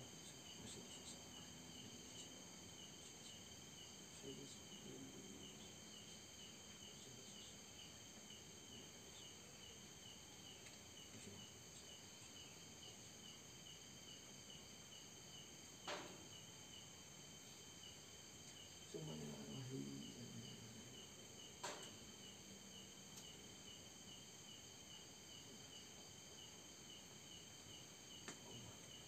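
Crickets chirping steadily in a fast pulsing rhythm. Two sharp knocks cut through, the first just past the middle and the second a few seconds later, with a low rustle between them; the knocks are taken for the sound of something being thrown.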